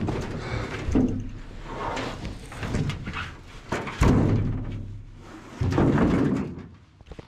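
Aluminum canoe hull clunking and thumping as it is tipped and lowered off the carrier's shoulders, with the heaviest thump about four seconds in.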